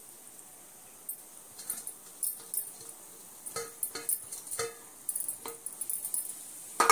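Metal spoon clinking and tapping against an aluminium pot as fried brinjals are dropped into the simmering gravy: a scatter of light metallic clinks from about a second in, several with a brief ring.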